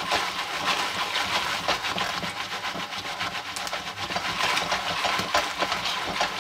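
Jiffy Pop foil pan being shaken fast over a stovetop burner: a steady scraping rattle with hot oil sizzling inside. A few sharp clicks stand out as the first kernels begin to pop.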